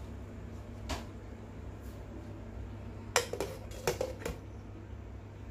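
Aluminium pressure-cooker lid being fitted and locked: a light knock about a second in, then a quick run of about five metal clanks and clicks around three to four seconds in as the lid handle is swung shut.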